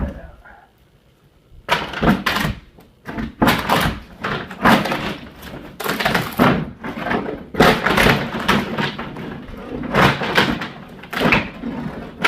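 Irregular, loud knocks, bangs and scrapes of hand demolition at a door opening, starting about two seconds in and running on densely.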